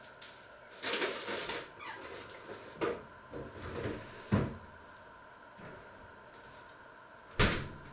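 Kitchen handling noises: a rustling clatter about a second in, then scattered knocks, a heavier thud a little past the middle and a sharp knock near the end, typical of cupboard doors and utensils being handled.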